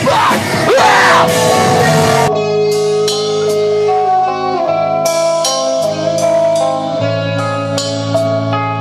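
Live rock band playing loud. A dense full-band section breaks off abruptly about two seconds in to a cleaner passage of ringing guitar notes over bass, with cymbal hits.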